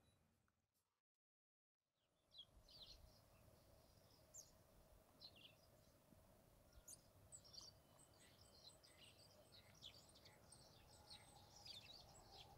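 Faint outdoor ambience with scattered short, high-pitched chirps of small birds, beginning about two seconds in after a brief silence and growing busier toward the end.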